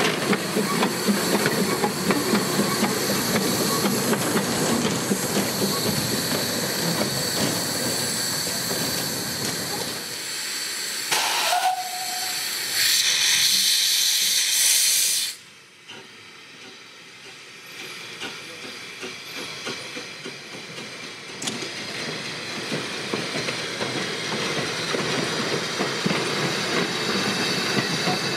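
Narrow-gauge steam locomotives in steam, hissing, with an engine working away during the first ten seconds or so. About halfway through, a loud rush of steam hiss lasts a couple of seconds and cuts off suddenly, leaving a quieter hiss that slowly grows again.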